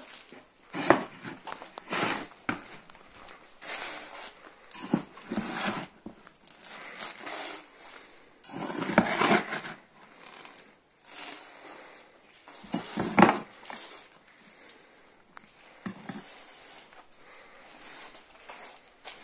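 Granular seedbed soil scooped by hand from a plastic tub and poured and spread into plastic rice seedling trays. It comes as a series of gritty rustling pours and scrapes, a few seconds apart.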